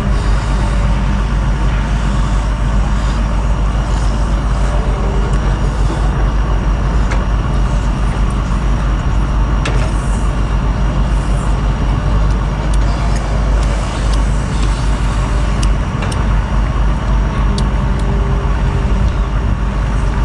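A steady, loud low rumble with an even hiss above it, with a few faint clicks scattered through it.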